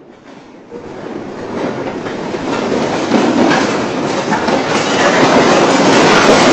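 A factory building shaking in a strong earthquake, its structure and fittings rattling and clattering continuously. The sound swells from faint to loud over the first few seconds, then stays loud.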